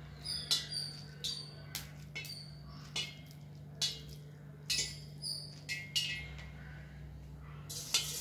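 Hands squeezing and shaping banana-flower vada batter over a steel bowl: irregular sharp clicks and short ringing clinks every half second or so, over a steady low hum. Near the end, hot oil starts sizzling as the vada is dropped into the pan.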